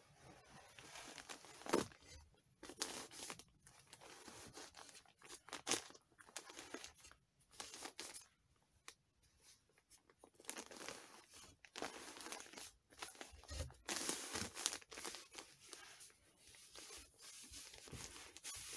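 Unfaced fiberglass insulation being torn and stuffed by hand into a gap: an irregular run of tearing and rustling sounds.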